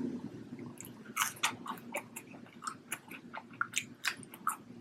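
A person chewing a mouthful of French fries: a run of short, irregular crunchy clicks and mouth smacks.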